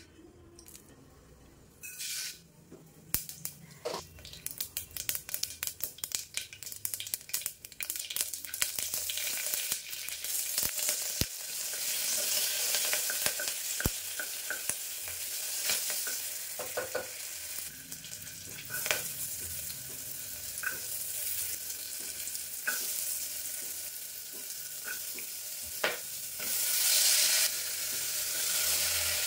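Spices and chillies frying in hot oil in an aluminium pressure cooker: many sharp crackles and pops over the first several seconds, settling into a steady sizzle with a few knocks of a wooden spatula stirring. The sizzle swells louder near the end as chopped vegetables go into the oil.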